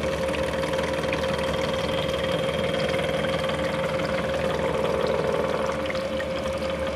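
Face mill on a CNC bed mill cutting a flat into an EN8 steel bushing under flood coolant: a steady machining sound with a constant tone, over the splash of coolant.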